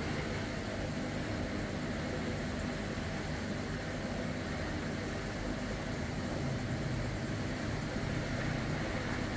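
Aquarium power filter and air stones running: a steady hiss of bubbling water over a low motor hum.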